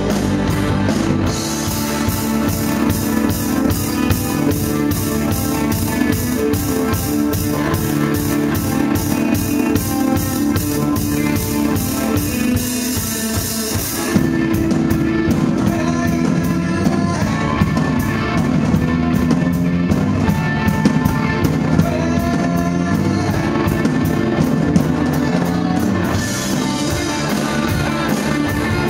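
A rock band playing live: two electric guitars, a bass guitar and a drum kit, with the cymbals keeping an even beat. The music shifts to a new section about halfway through.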